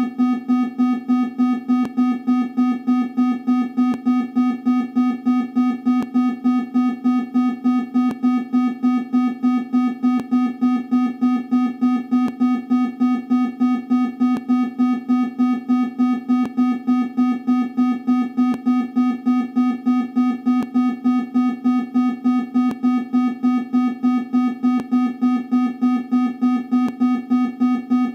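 Emergency alert system alarm tone made electronically: a single low pitch, pulsing evenly about four times a second without a break.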